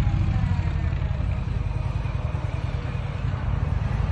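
Indian PowerPlus 112 liquid-cooled V-twin running at low revs through its stock Euro 5+ exhaust, a steady deep pulsing note.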